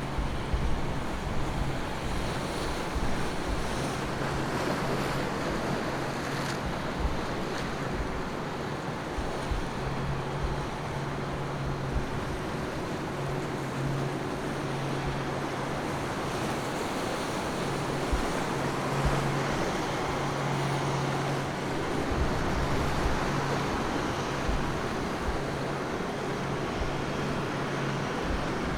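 Ocean waves breaking and water washing through a beach inlet, recorded on a mid-side microphone pair. Low wind rumble sits on the microphone, and a low steady hum comes and goes.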